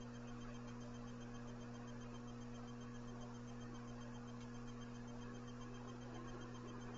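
Steady low electrical hum with faint background hiss, unchanging throughout.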